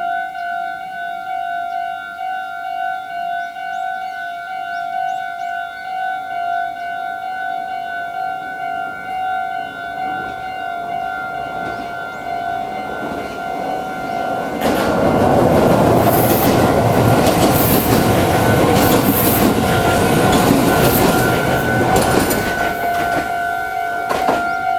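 Level-crossing warning bell ringing in a steady, repeating electronic tone. About fifteen seconds in, an electric train passes close by, and its loud rumble and wheel clatter sound over the bell until near the end, when the bell stops.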